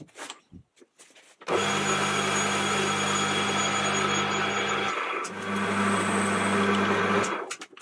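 Mini lathe running with a steady motor hum while a twist drill cuts into a spinning brass workpiece. It runs in two stretches, starting suddenly after a few light clicks, breaking off briefly just before five seconds, then running again until it stops near the end.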